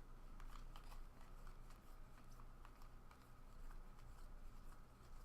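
Faint, irregular clicks and rustles of trading cards being flipped through and handled, card stock sliding and tapping against card stock.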